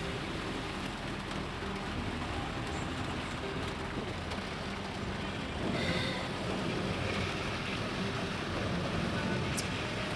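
A Zhiguli car driving through deep flood water in heavy rain, heard from inside the cabin: the engine running under a steady wash of water and rain noise, which swells about six seconds in.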